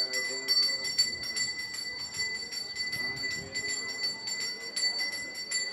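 A small Hindu prayer bell rung rapidly and without pause during the havan ritual, with voices faintly underneath.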